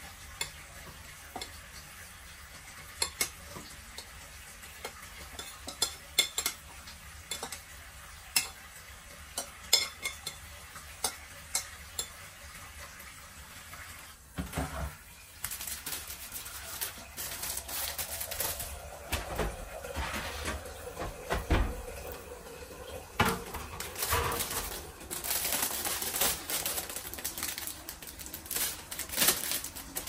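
Kitchen handling sounds: scattered clinks and knocks of dishes and utensils against the worktop and gas hob grates, growing busier in the second half with a metal baking tray set on the hob and the crinkle of a plastic food packet.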